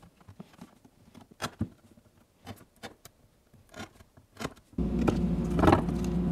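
Utility knife blade scraping and clicking in the kerf of a CNC-cut wooden panel, slicing through the thin skin of wood the end mill left uncut so the shelf bracket can be freed. About three-quarters of the way in, a steady machine hum starts suddenly and becomes the loudest sound.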